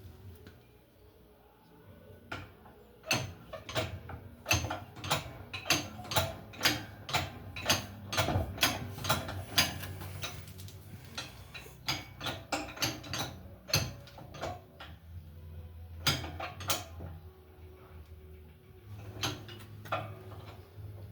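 Irregular metallic clicks and knocks of hand tools on the parts of an industrial kitchen exhaust fan being taken apart for bearing replacement, over a low hum.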